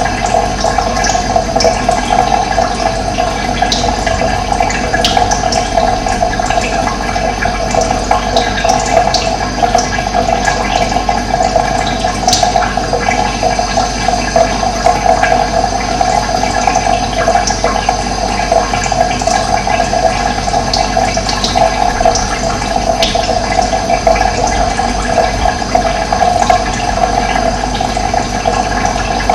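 Running water flowing steadily, an even, unbroken rush, with scattered brief high-pitched ticks above it.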